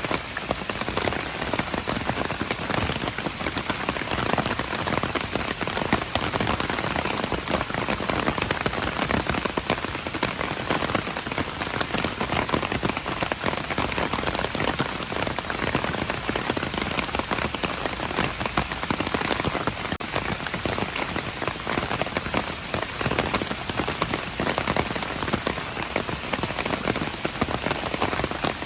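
Steady rain falling and pattering on hard surfaces, a dense even hiss with many small drop impacts.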